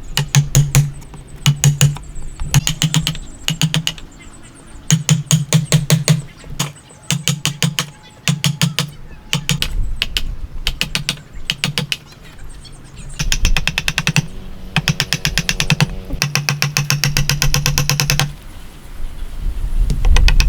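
Hand-tool work on wood: rapid runs of sharp taps in short bursts, several a second, with a longer unbroken run near the end.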